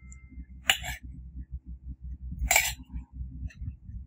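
Small metal tongs clinking against a miniature stainless steel plate and pan while fried sausage pieces are moved. There are two sharp clinks about two seconds apart.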